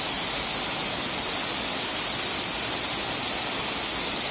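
A small waterfall pouring over rocks into a pool: a steady, even rush of falling water.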